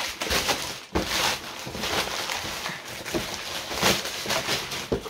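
Grey plastic mailer bag rustling and crinkling as a cardboard box is pulled out of it, loudest about a second in and again near four seconds in.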